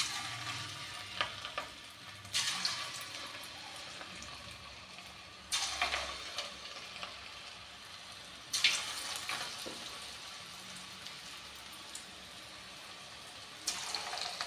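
Beetroot pakoda batter dropped by hand into hot oil in a kadai. Each portion sets off a sudden burst of sizzling that settles back into a steady fry, five times in all, a few seconds apart.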